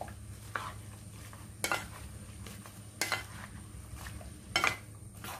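Wooden spatula stirring and turning chopped raw jackfruit and drumstick pieces in a wet non-stick pan. The moist pieces shift and slide, and four or five sharper knocks of the spatula against the pan fall about a second apart.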